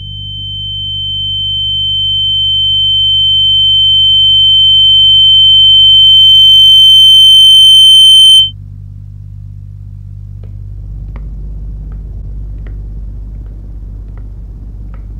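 A steady high-pitched electronic sine tone that swells slowly louder for about eight seconds and then cuts off suddenly, over a low hum. After the cut only a low rumble with a few faint clicks remains.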